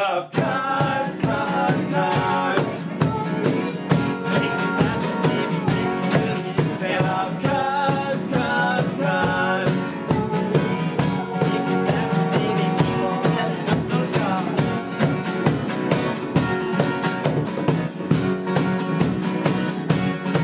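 Live rock band playing a song: a drum kit keeping a steady beat under guitars, with singing.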